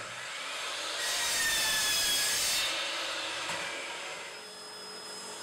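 DeWalt miter saw cutting through a wooden board: a high-pitched whine and hiss that build up, stay loudest for about two seconds, then fade away as the blade winds down.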